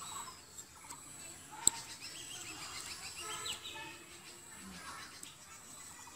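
Birds chirping and calling in short repeated notes, with one sharp click about a second and a half in.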